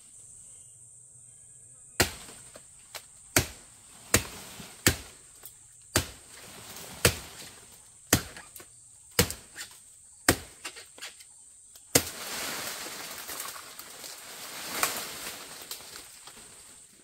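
A blade chopping into wood, about ten sharp strikes roughly a second apart, then a few seconds of continuous rustling noise. Insects keep up a steady high-pitched buzz throughout.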